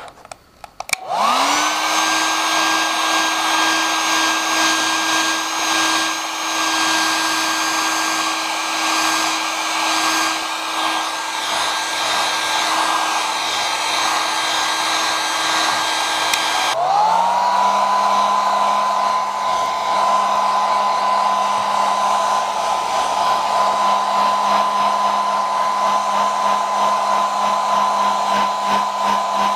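Hand-held hair dryer switched on with a click and spinning up about a second in, then running steadily with a motor whine over the rush of air, blowing heat onto a RAM module to loosen the thermal adhesive under its heatsink. About halfway through the sound breaks off abruptly and the dryer spins up again to a steady, lower-pitched whine.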